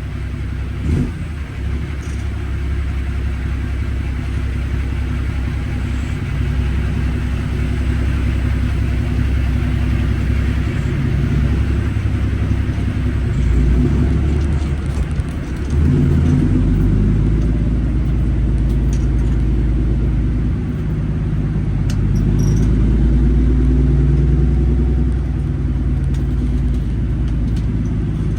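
International 9900's 600-horsepower Cummins diesel running while the truck drives, a steady low rumble whose pitch and level shift several times, with a step up about sixteen seconds in.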